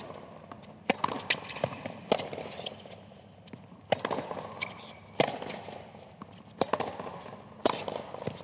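Tennis baseline rally on a hard court: the ball is struck six times, about one shot every second and a half, the near player's hits louder than the far player's, with shoe squeaks on the court between shots.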